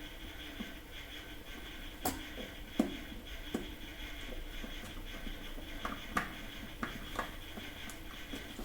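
Scattered light clicks and taps of small plastic parts being handled and fitted together, about seven in all, over a faint steady hum.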